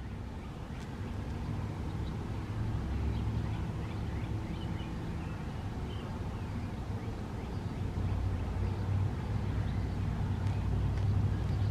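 Low, steady rumble of traffic with small birds chirping, slowly growing louder toward the end.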